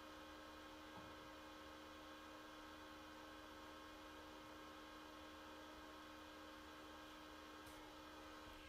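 Near silence with a faint, steady electrical hum made of several even tones; it cuts off at the very end.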